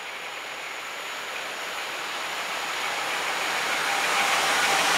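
EP07 electric locomotive hauling a passenger train as it approaches, a steady rushing noise that grows louder throughout.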